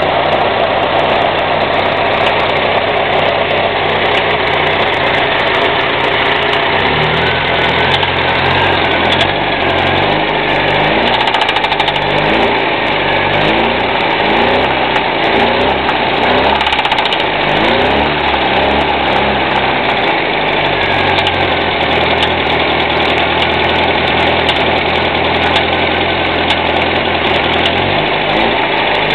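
UZAM 1.5-litre petrol engine running with a knock. It runs steadily, is revved up and down several times from about seven to twenty seconds in, then settles back to a steady idle.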